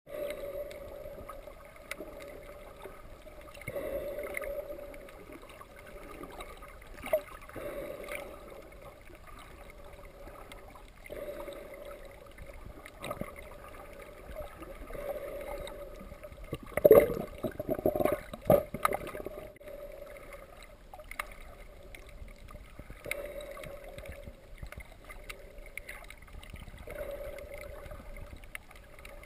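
Muffled underwater sound through a camera's waterproof housing: a scuba diver breathing through a regulator, with a gush of exhaled bubbles every three to four seconds over a steady low hum. A louder cluster of bubbling and knocks comes a little past the middle.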